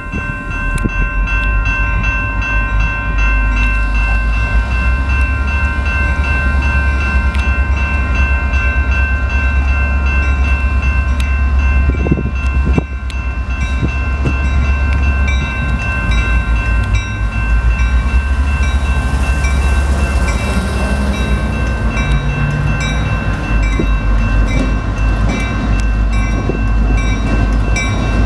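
Grade-crossing warning bell ringing steadily while Canadian Pacific diesel locomotives draw up to the crossing, their engines a low steady rumble underneath.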